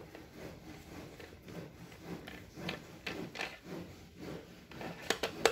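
Screwdriver turning screws out of the plastic motor base of a Cosmos CB 802 blender: faint scraping and rubbing with small clicks as the tool and housing are handled, and two sharper clicks near the end.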